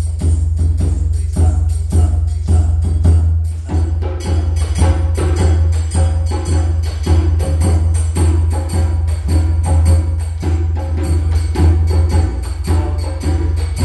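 Ensemble of West African dunun drums (dununba, sangban, kenkeni) struck with sticks, playing a dununba rhythm with its interlocking accompaniment parts as a steady, dense run of strokes.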